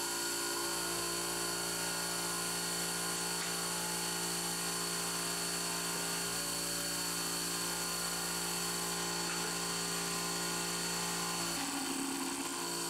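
CNC milling machine spindle running a quarter-inch three-flute cobalt end mill at about 5900 rpm, side-cutting a metal block. It makes a steady whine of several fixed tones over a hiss, and the lower tones shift briefly near the end.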